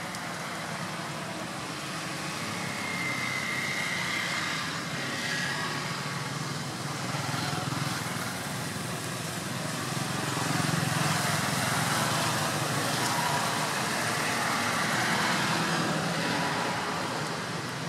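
Steady road traffic noise from passing vehicles, swelling louder about ten seconds in.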